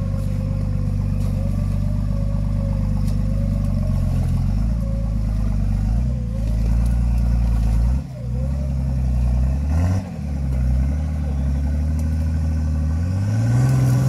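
Nissan Patrol's engine running steadily under load as it pulls through water and broken lake ice. It eases off briefly about eight and ten seconds in, then revs up rising near the end.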